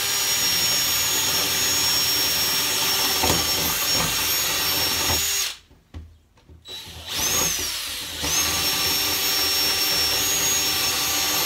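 Handheld power drill boring a starter hole through an OSB countertop, its motor whining steadily. It stops about five and a half seconds in, spins up and winds down briefly about a second later, then runs steadily again from about eight seconds.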